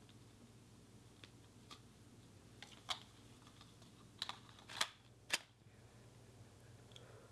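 A few scattered sharp clicks and taps, about eight in all, the loudest bunched together in the middle, over a low steady hum.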